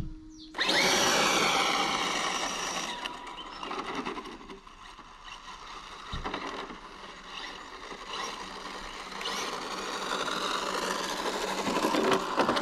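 Brushless-powered RC drag car launching hard on asphalt about half a second in: a sudden loud electric motor whine with tyre noise. The sound fades as the car speeds away and grows again as it comes back.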